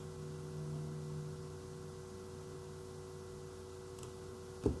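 Low steady electrical hum with faint hiss, and a single key click on a computer keyboard near the end.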